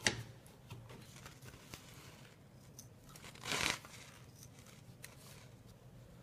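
Scissors cutting along a rattlesnake's belly skin: faint small snips and clicks, with one louder noise lasting about half a second about three and a half seconds in.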